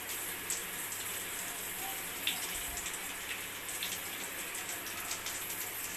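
Water running steadily from a tap into a wash basin, with small splashes and drips.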